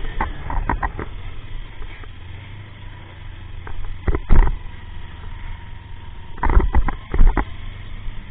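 Motorcycle engine running steadily, with short loud bursts about four seconds in and again in a cluster around six and a half to seven and a half seconds.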